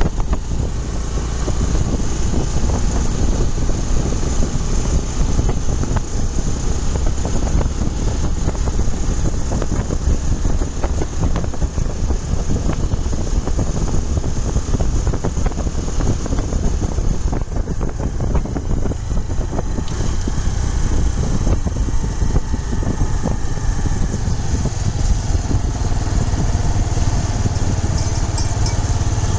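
Motorcycle running steadily on the move, with a deep rumble that grows somewhat stronger near the end.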